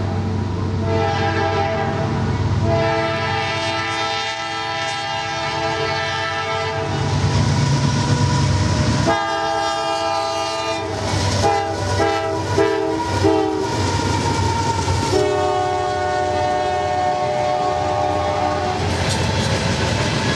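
Freight locomotive's multi-chime air horn sounding in turn: a long blast, another long blast, a few short ones, then a final long blast, the pattern of a grade-crossing warning. Under it runs the low rumble of the diesel locomotives and the clatter of train wheels on the rails as the freight train draws close and passes.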